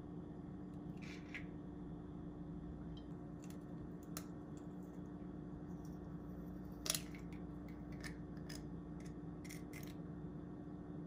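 An egg being cracked and its shell pulled apart over a glass bowl: a few faint clicks of shell and one sharp crack about seven seconds in, over a steady low hum.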